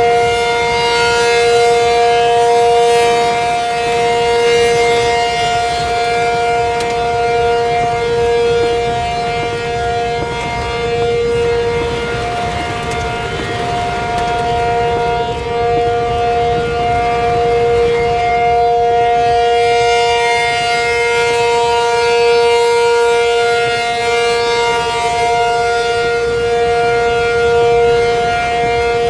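ACA Penetrator 50 outdoor warning siren sounding a steady alert chord of two held notes for a tornado warning. The notes keep the same pitch throughout, and the sound swells and fades slowly as the siren head rotates.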